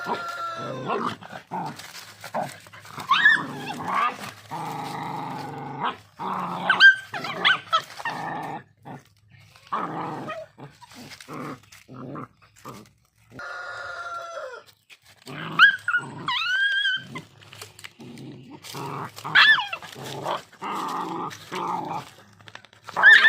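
Dogs growling and snarling in a scuffle, broken every few seconds by short high yelps that bend up and down in pitch.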